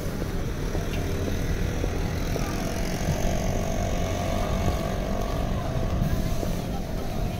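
Busy city-street ambience: a steady low rumble of road traffic, with a faint droning tone from a vehicle engine in the middle few seconds.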